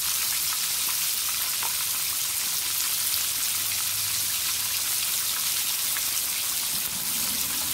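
Chicken wings in batter deep-frying in hot canola oil in a cast iron skillet: a steady sizzle with fine crackles. The sizzle is still strong, so the chicken is still cooking; it goes quiet once the chicken is done.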